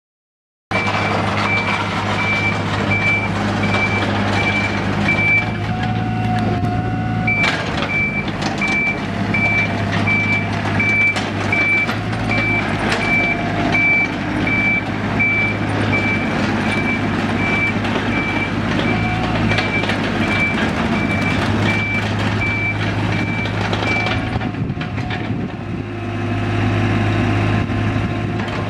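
2004 IHI 35N mini excavator's Isuzu three-cylinder diesel running while the machine moves, with its travel alarm beeping at a steady rate. The beeping pauses briefly about six seconds in and stops about twenty-four seconds in, leaving the engine running on its own.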